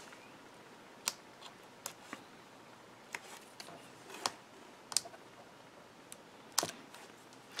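Faint, irregular small clicks and taps of fingers and nails handling paper as thick foam adhesive dots are peeled and pressed onto a cardstock piece; about eight in all, the sharpest about six and a half seconds in.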